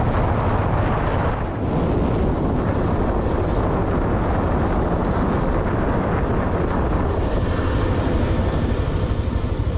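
Wind buffeting the microphone over a running vehicle engine, a steady deep noise while travelling along the road.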